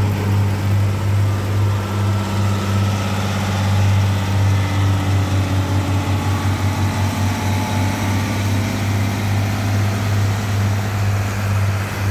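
Engine of a rail-mounted track-relaying gantry running steadily with a loud low drone, which takes on a fast throb for a couple of seconds about halfway through.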